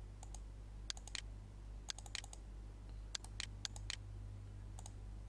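A series of sharp, light clicks from operating a computer's mouse and keys, falling in small quick clusters about once a second, over a steady low electrical hum.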